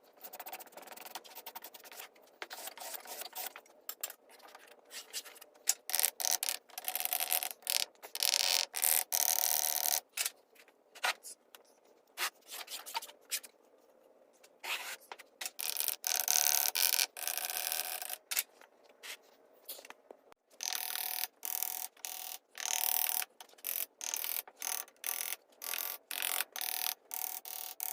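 Irregular scraping and rubbing strokes of uneven length, one after another with short breaks between them.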